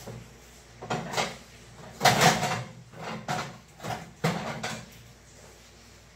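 Someone rummaging in a low kitchen cupboard: a string of irregular knocks and clatters as things are moved about and doors bump, loudest about two seconds in and dying away near the end.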